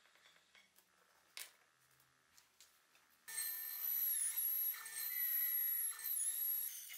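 A few faint handling clicks, then about three seconds in a bandsaw cuts a wooden knife-handle blank, a steady high whine that dips briefly in pitch twice.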